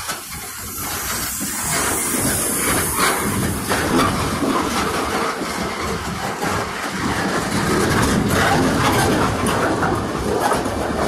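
Freight train's loaded centerbeam flatcars rolling past close by, a steady rumble of steel wheels on the rail with clattering and hiss, growing louder over the first couple of seconds.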